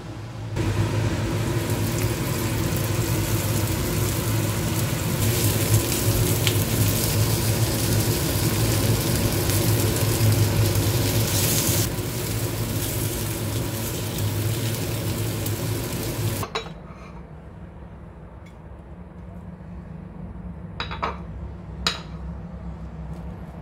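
Floured Spanish mackerel (samchi) steaks sizzling loudly as they pan-fry in a stainless steel frying pan. About two-thirds through the sizzle stops abruptly, leaving a low hum and a few sharp clicks of a spatula against the pan.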